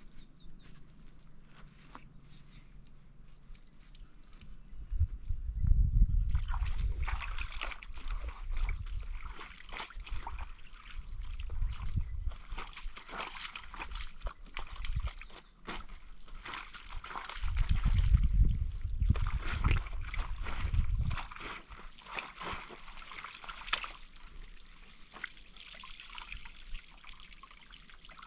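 Water sloshing and trickling, with many small splashes following one another. Two spells of low rumble come in, about five seconds in and again past the middle.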